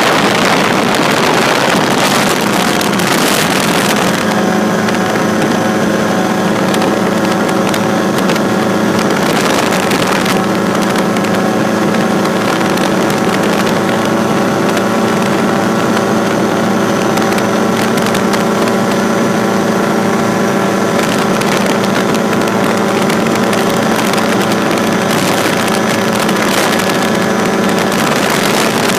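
Drifter ultralight aircraft's two-stroke engine running steadily at cruise power in flight, its propeller drone holding one pitch throughout. A rush of airflow noise is heavier in the first few seconds, then eases off.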